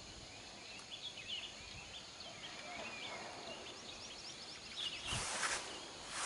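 Faint outdoor ambience with many short, high bird chirps scattered throughout. A brief rush of noise comes about five seconds in.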